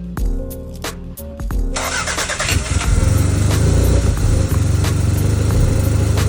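Toyota 3S-GTE turbocharged four-cylinder of a 1991 Celica All-Trac Turbo catching and starting about two seconds in, then running steadily: its first start after sitting for over five years. Background music plays under the first part.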